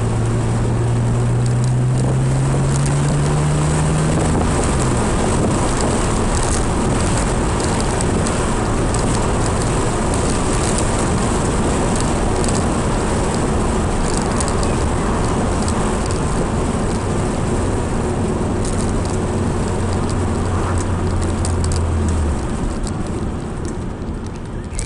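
BMW E46 330Ci's straight-six engine pulling under acceleration, its pitch rising for the first few seconds and then dropping at a gear change. It then holds a steady note until it eases off near the end, over constant road and wind noise. The car is being driven to catch an unidentified knock that comes at low revs when accelerating through second gear.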